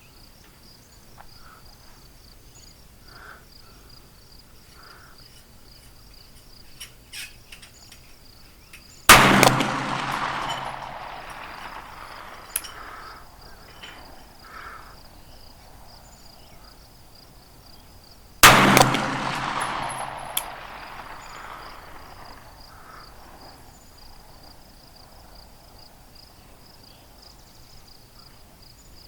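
Two pistol shots from a CZ pistol with a 4.5-inch barrel, about nine seconds apart, each echoing and dying away over a couple of seconds. Under them runs a steady high chirring of insects.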